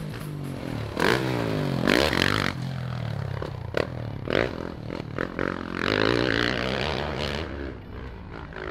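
Motocross bike engine revving up and dropping off again and again as the rider accelerates, shifts and goes over jumps, with a few sharp knocks about four seconds in.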